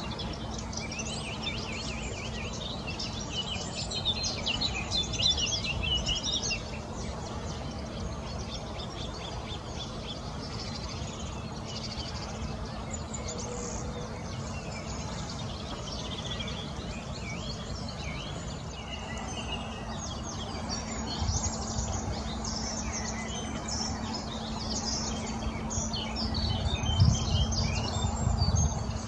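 Many short, high bird chirps and calls over the flowing river, thickest in the first few seconds and again in the last third, over a low rumble that grows louder near the end.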